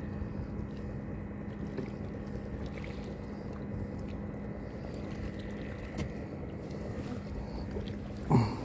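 Fishing boat's engine running at a steady, unchanging pitch. Near the end a brief louder sound falls sharply in pitch.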